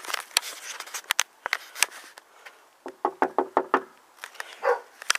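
A run of sharp taps and clicks, then a dog barking about six times in quick succession about three seconds in, with one more bark near the end.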